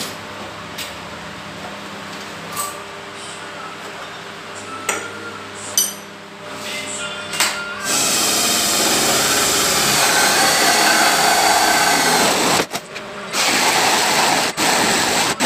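A cordless drill runs under load, boring into a wooden board. The drilling starts about halfway through, stops briefly, then starts again. A few sharp knocks come before it.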